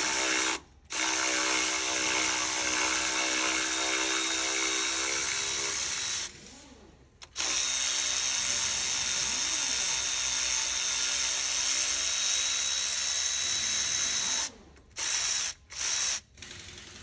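Cordless electric ratchet running as it loosens bolts: a brief run at the start, then two long runs of about five and seven seconds with a short pause between, then two quick blips near the end.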